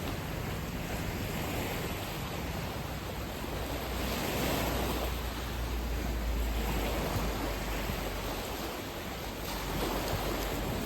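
A steady rushing outdoor noise, such as surf or wind, with a low rumble beneath, swelling every few seconds.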